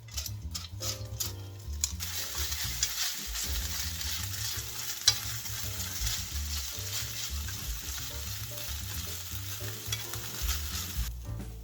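Food sizzling in a hot frying pan while it is stirred. The sizzle starts about two seconds in and stops near the end.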